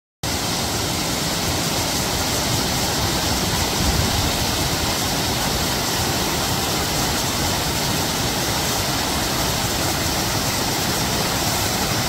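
Waterfall rushing: a wide curtain of water pouring over a ledge into a pool, an even, steady rushing that starts abruptly just after the beginning.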